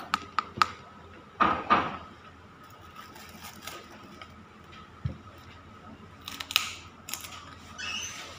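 Metal fork and spoon clinking against a plate while eating: three quick clinks about half a second apart right at the start, two louder scraping sounds about a second and a half in, and a few more clinks and scrapes near the end.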